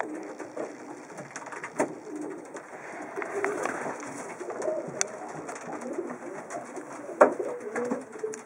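Racing pigeon cooing, low and wavering, with a few sharp clicks; the loudest click comes about seven seconds in.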